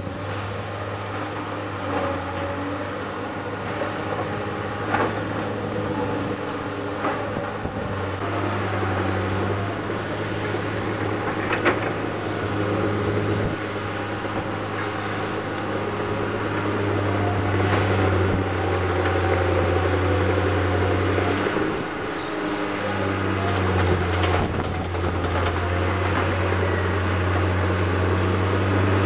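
Diesel engines of earthmoving plant, a crawler bulldozer and an excavator, working steadily with a low hum. The hum dips briefly twice, and there are a few metallic clanks.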